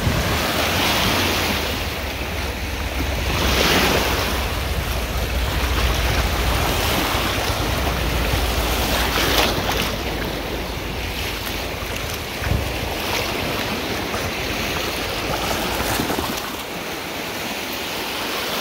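Small lake waves washing onto a sandy shore and breaking around rocks, with wind buffeting the microphone. A few waves swell louder, about a second in, near four seconds and near nine and a half seconds.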